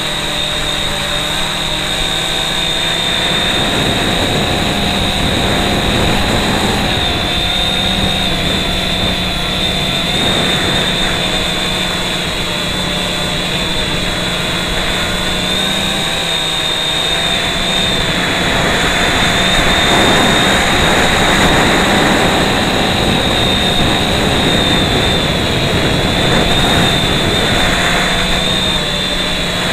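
FPV drone's electric motors and propellers whining steadily in flight, the pitch wavering slightly with throttle, over rushing air noise at an onboard action camera's microphone.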